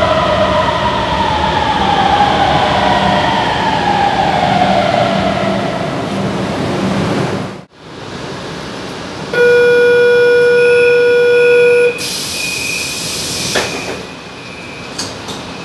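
Line 5 Frota F metro train running into the station, its motor whine falling steadily in pitch as it brakes. After a cut, inside the car a loud steady door-warning tone sounds for about two and a half seconds with a beeping alongside, then a hiss and a knock as the doors slide shut.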